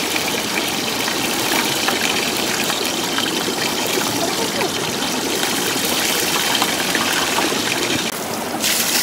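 A shallow rocky stream running steadily, with hot oil poured from a ladle over a hanging chicken and trickling back into the wok.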